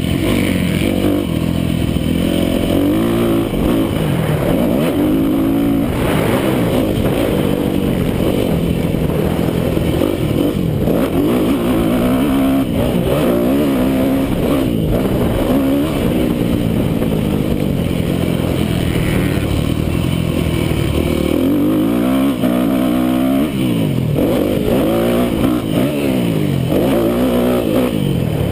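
Yamaha YZ250F four-stroke motocross bike engine revving hard, its pitch climbing and dropping again and again as the rider accelerates, shifts and backs off through turns.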